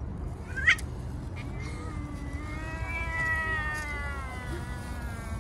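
Street cat meowing: a short, sharp rising squeak about a second in, then one long drawn-out meow that rises and then falls, lasting nearly three seconds. A steady low rumble runs underneath.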